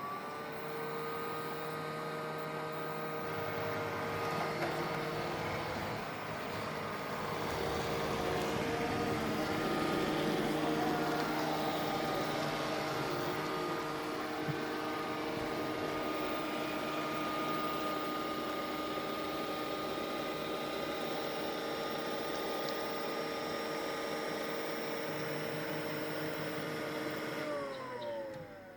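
Roborock S5 robot vacuum's motor spinning up with a rising whine, running steadily with a hum and rushing air, then winding down with falling pitch near the end. This is the strange noise its owner reports, together with a smell of burnt plastic.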